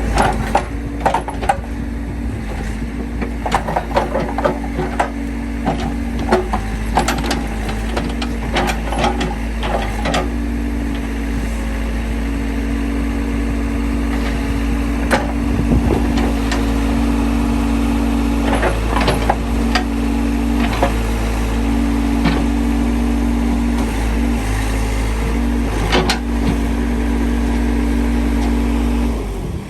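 Case 580C backhoe running, its engine drone stepping up and down in pitch as it works, with repeated clanks and knocks. The sound cuts off suddenly near the end.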